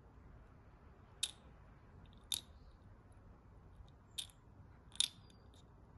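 Faint, sharp clicks of small plastic parts, four of them spread over a few seconds, as a disposable plastic pipette is pressed and worked against a small plastic vial of buffer solution between the fingers.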